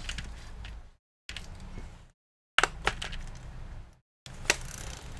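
Sharp snaps and clicks as a laptop's bottom cover is pried off by hand and its retaining clips release, with rustle from handling the case; the loudest snaps come a little past halfway and near the end.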